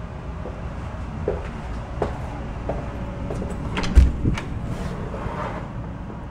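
An interior door is handled and opened: light clicks and knocks, then a louder thump with clicks about four seconds in, over a low steady rumble.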